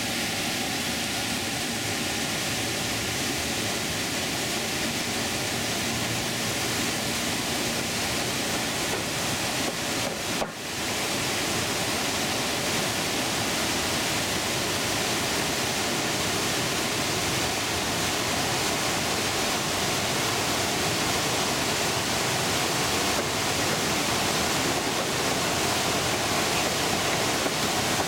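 Whitewater rapids of a concrete slalom channel rushing steadily, a continuous churning of water with a brief drop about ten seconds in.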